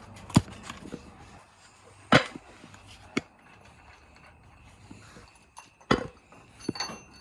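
A handful of sharp knocks at irregular intervals, about four or five in all, typical of tools or parts being handled in a workshop.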